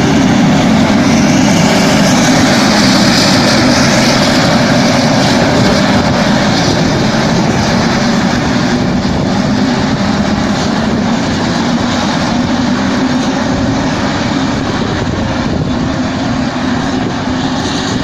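Tractor and ROC RT 1000 belt merger running steadily as a loud, unbroken machinery drone while they gather cut wheat for silage. It grows a little quieter toward the end.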